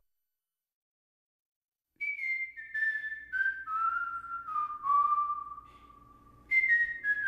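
A whistled melody on the soundtrack, starting about two seconds in: a phrase of notes stepping down in pitch over a low drone, which begins again from the top near the end. A short tone sounds at the very start.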